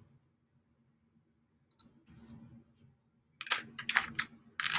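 Quick clicking at a computer: a few faint clicks about two seconds in, then a denser run of sharp clicks from about three and a half seconds in, over a faint low steady hum.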